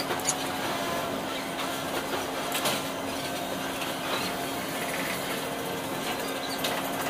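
Steady outdoor city background: a constant hum of distant traffic and machinery, with a few light knocks near the start.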